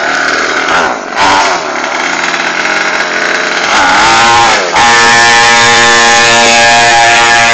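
Orion 50 mini dirt bike's small engine running, revving up about four seconds in and then held steady at high revs as the bike pulls away.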